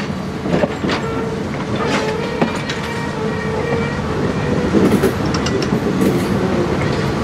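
Dinner-train passenger cars rolling slowly past, a steady rumble of steel wheels on rail with several sharp knocks and clicks over the track in the first few seconds, and now and then a faint squeal from the wheels.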